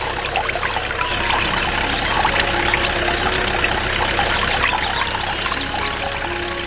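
Grape juice pouring and trickling from the spout of a miniature DIY juice machine into a small plastic bucket, splashing and bubbling steadily, over a low steady hum.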